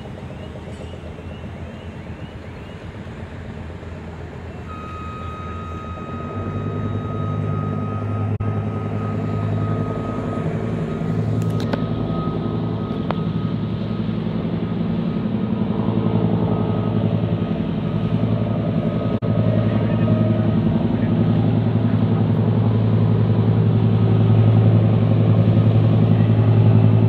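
Engine running with a steady low drone that grows gradually louder. A thin, steady high tone sits over it for about ten seconds, starting around five seconds in.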